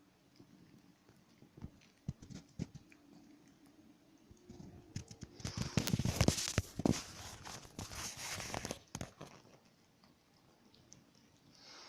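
Dog licking and chewing cheese: scattered wet smacking clicks, thickening into a dense run of licks and smacks for a few seconds in the middle.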